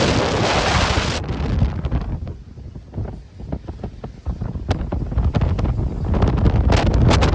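Wind buffeting the microphone over the noise of a rough sea's surf. It is loud for about the first second, eases off in the middle, and builds again near the end.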